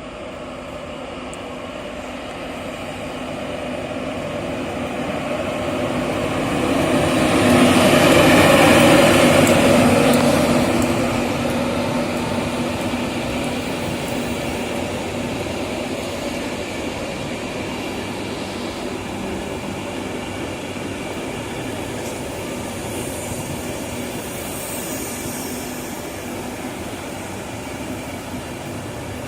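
Class 91 electric locomotive with its train running through the station, growing louder to a peak about eight to ten seconds in, then settling into a steady hum.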